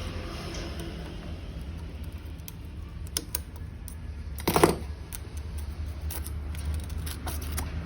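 Metal tools and shock absorber parts being handled on a workbench: scattered light clicks and clinks, with one louder metallic clank that rings briefly a little past halfway, over a steady low hum.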